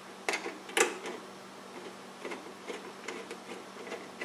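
Screwdriver turning a screw into the fixture's sheet-metal side panel: two sharp metallic clicks in the first second, then a run of lighter ticks.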